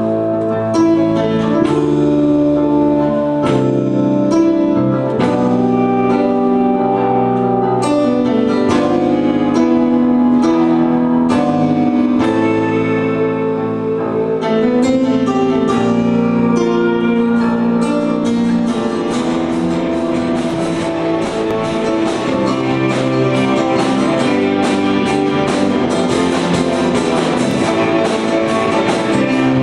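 Live rock band playing an instrumental passage: held keyboard and guitar chords that change every second or two, then from about eighteen seconds in the drums and guitars take up a fast, steady driving beat.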